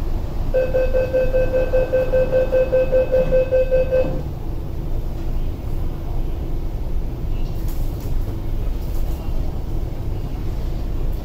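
MTR East Rail Line SP1900 (IKK) train's door-closing warning: a rapid beeping tone for about three and a half seconds as the doors shut. After it stops, a steady low hum over the train's rumble.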